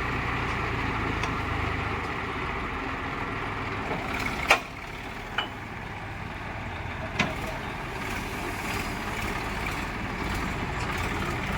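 A heavy vehicle's diesel engine running steadily, with three sharp knocks: a loud one about four and a half seconds in, then smaller ones about a second and again nearly three seconds later.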